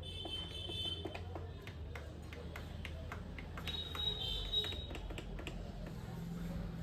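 Plastic panel buttons on a Roland XP-30 synthesizer clicking as they are pressed over and over, testing switches that respond erratically. Two brief high tones sound, near the start and about four seconds in, over a steady low hum.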